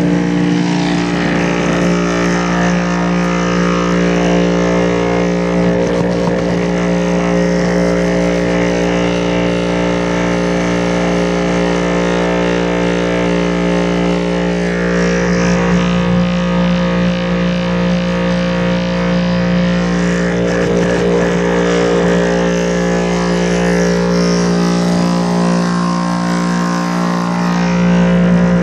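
Homemade vibrating ore classifier running: an electric motor with an offset weight shakes a plastic bucket sieve of sand mounted on a tire, giving a loud, steady hum with a noisy rattle over it.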